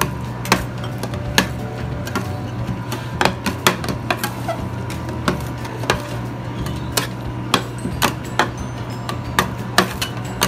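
Metal spatulas chopping and tapping on the cold plate of a fried-yogurt pan, giving irregular sharp knocks over a steady low hum.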